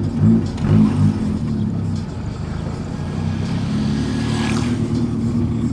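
Volkswagen Gol engine rumbling through its JK exhaust while driving. It surges in three or four quick pulses in the first second, then settles into a steady low drone.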